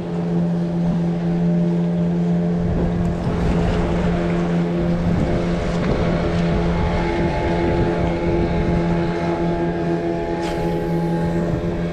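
Motorboat engine running at a steady pitch, a constant drone with wind noise on the microphone.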